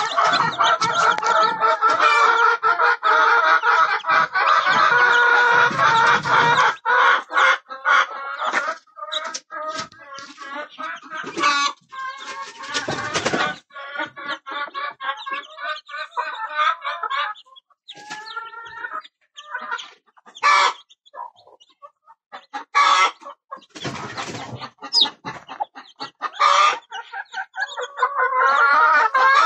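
A brood of newly hatched chicks peeping together, mixed with a mother hen's clucks. The peeping is a dense chorus at first, thins to scattered calls in the middle and swells into a full chorus again near the end.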